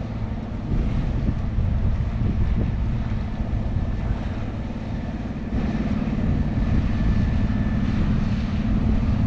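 Boat engine droning steadily, growing louder about halfway through, over a low rumble of wind on the microphone.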